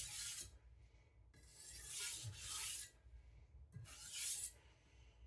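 The steel blade of a Victorinox Chinese cleaver rasping in slow strokes. Each stroke is a soft scraping hiss, the middle one longest, with short pauses between.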